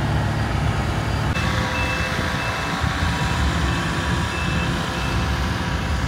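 Diesel engine of a road roller running with a steady low rumble, and from about a second and a half in a reversing alarm sounding short, repeated high beeps.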